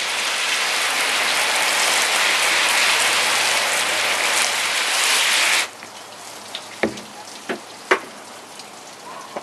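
Garden hose spray nozzle spraying water onto rhubarb stalks on a table: a steady hiss of water that cuts off suddenly about five and a half seconds in. A few short knocks follow as the wet stalks are handled.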